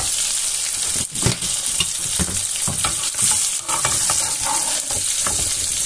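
Turmeric-coated fish steaks sizzling steadily in hot oil, fried through, with a slotted metal spatula scraping and knocking against the frying pan several times as the pieces are lifted out.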